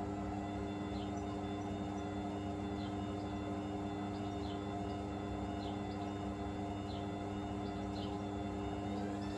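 Hoover VisionDynamic front-loading washing machine on its final spin, drum and motor turning at a steady speed with a steady hum and whine. Near the end the pitch starts to climb as the spin speeds up toward 1000 rpm.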